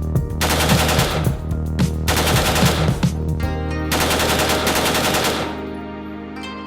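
Three long bursts of rapid gunfire, shots coming too fast to count, from a rifle firing in quick succession; the last burst is the longest and stops about a second before the end.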